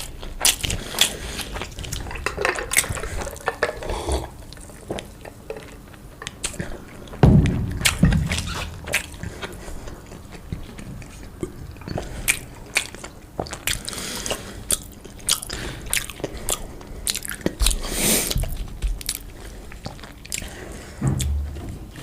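Close-miked eating sounds: a person biting and chewing food, with many sharp wet mouth clicks throughout and a few louder, fuller bursts about seven, eight and eighteen seconds in.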